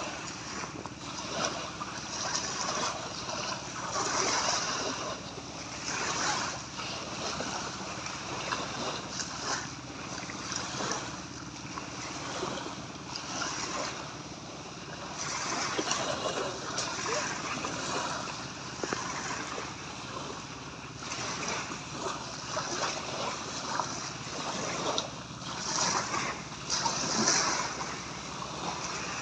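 Small waves washing and breaking on a sandy shore, the surf rising and falling in surges every few seconds, with wind buffeting the microphone.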